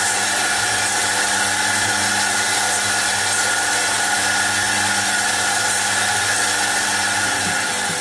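BM450A tool and cutter grinder's aluminium oxide wheel grinding a flat steel bar held in a vise: a steady grinding hiss over the even hum of the wheel motor.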